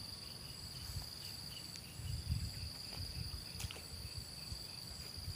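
Steady high-pitched insect chirring, with low irregular rumbles and a faint click a little past halfway.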